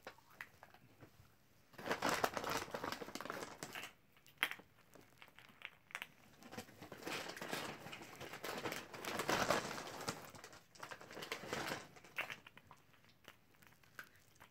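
Wrapped chocolate candies and their plastic bag crinkling as they are handled, in several bursts, with a sharp click about four seconds in.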